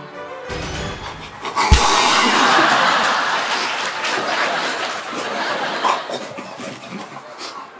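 Group of men laughing hard, with a sharp thump as it breaks out about a second and a half in; the laughter runs loud for several seconds, then tapers off.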